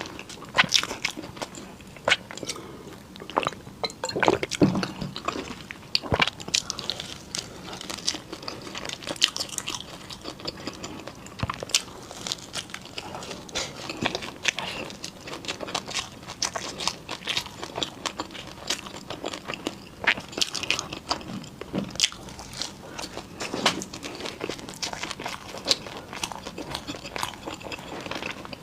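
Close-miked biting and chewing of crunchy Chinese pastries: irregular sharp crunches, a few a second, over steady chewing.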